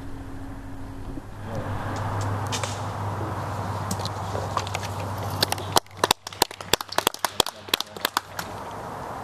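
Camcorder handling and zoom noise: a steady whir as the lens zooms, then from about six seconds a quick run of sharp crackling clicks with brief dropouts in the sound, the mark of the camcorder's faulty zoom rocker contact.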